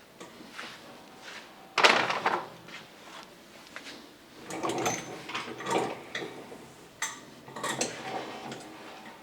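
A series of clunks and knocks with some scraping, as of heavy things being shifted and set down, the loudest a sharp hit about two seconds in.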